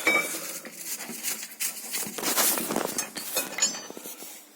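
Metal tools and steel suspension parts clinking and knocking in a string of small irregular clanks. One short metallic ring comes about three and a half seconds in.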